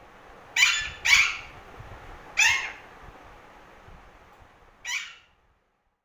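Alexandrine parakeet giving four harsh squawks: two in quick succession, a third after a pause, and a last one near the end.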